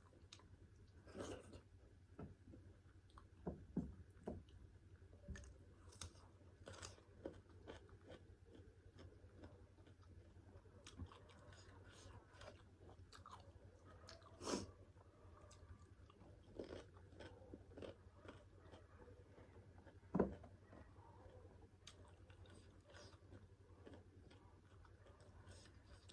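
Close-up mouth sounds of a person eating pork curry with rice: soft chewing with scattered wet smacks and clicks, and a sharper knock about twenty seconds in.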